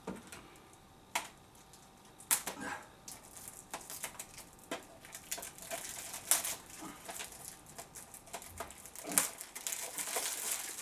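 Plastic wrapping crinkling and tearing as it is pulled off a video case, with scattered sharp clicks and taps. The crinkling gets denser near the end.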